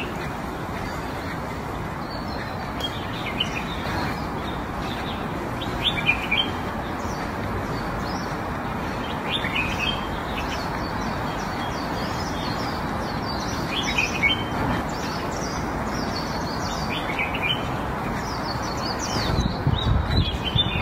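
Small birds chirping in short bursts every few seconds over a steady outdoor background hiss.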